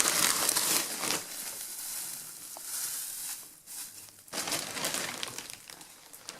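Loose dry hay rustling and crackling, loudest in the first second, then in short spells later on.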